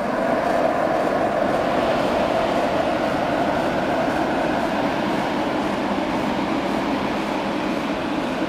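DB Class 112 electric locomotive pushing a regional express train out of the station: a steady mix of traction motors, blowers and wheels on rail, easing slightly in level near the end.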